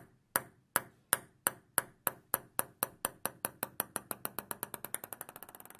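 A table-tennis ball bouncing on a hard surface. The sharp clicks come faster and faster and grow fainter until the ball settles into a quick patter and stops.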